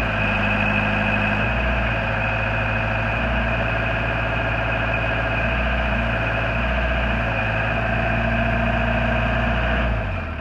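Deutz diesel engine of a Genie GTH-5519 telehandler running steadily while the boom is lowered and retracted, with a steady high whine over the engine note. The engine note changes about a second and a half in, and the sound falls away at the very end.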